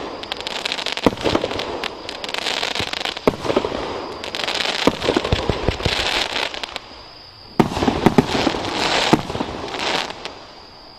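Multi-tube fireworks cake firing: rapid shots and bursts with dense crackling. The firing pauses for about a second, seven seconds in, then a final volley dies away about a second before the end.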